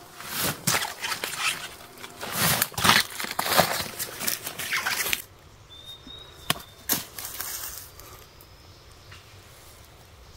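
Fibrous wild banana stem sheaths being ripped and stripped off by hand: dense crackling and tearing for about five seconds that stops suddenly. Then quieter, with two sharp snaps as the pale inner core is broken.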